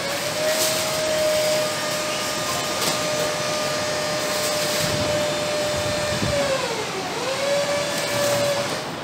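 Plastic stretch wrap crinkling and rustling in short bursts as it is pulled off a stainless-steel machine. Under it runs a steady motor-like whine that drops in pitch about two-thirds of the way through and climbs back.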